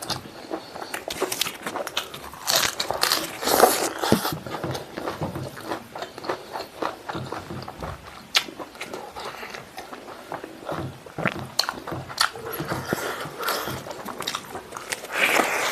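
Close-miked eating sounds of a man chewing pork stomach and rice with his mouth open: wet smacking, squelching and many sharp clicks, with fingers working sticky food.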